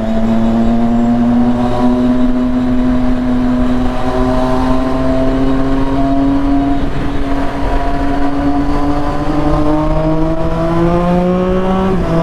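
Triumph Street Triple 675's inline three-cylinder engine, fitted with a full aftermarket exhaust, pulling under steady acceleration as the bike is ridden. Its note climbs slowly in pitch, dips briefly near the end at a gear change, then climbs again.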